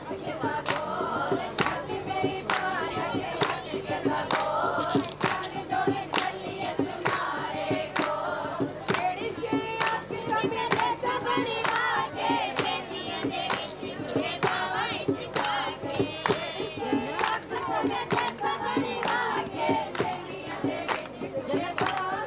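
A group of women singing together, with hand clapping in a rough beat of about two claps a second.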